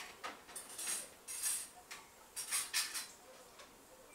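Pot of spicy dried pollack soup bubbling on a portable gas burner: irregular pops and short hissing spits from the broth, bunched in a few clusters over the first three seconds.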